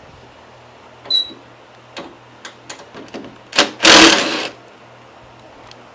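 Hand tools and metal parts being handled while bolts come off a tractor's steering assembly. There is a short ringing metal clink about a second in, then scattered clicks, then a loud clatter lasting about a second near the middle.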